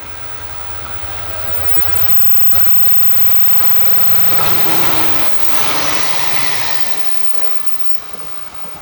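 Electric local train running past on the line: wheel and rail noise swells to its loudest about halfway through, then fades away near the end.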